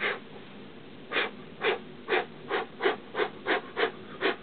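A man's quick, sharp breaths through the pain of a dumbbell being rolled on his shin: one breath, a pause of about a second, then a rapid run of about nine short breaths, roughly three a second.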